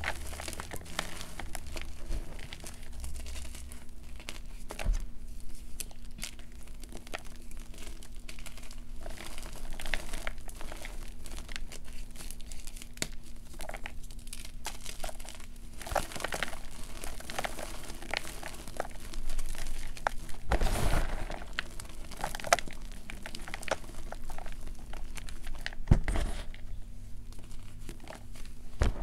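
Blocks of gym chalk crushed and crumbled by hand in a plastic bowl of powder: a dense, irregular crunching and crackling, busiest about 16 and 21 seconds in.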